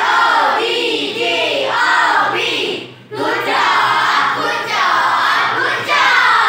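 A class of children singing an ice-breaking song together, with a short break about three seconds in.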